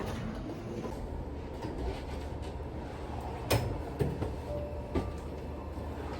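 A steady low rumble, with sharp knocks about halfway through and again near the end.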